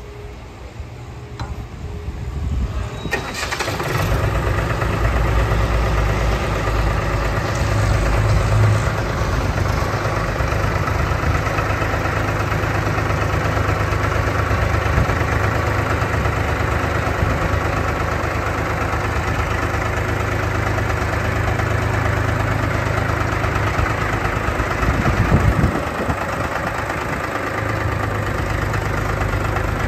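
Engine of a Mastermind spray machine starting about three seconds in, then running steadily at idle, its note shifting briefly near the end.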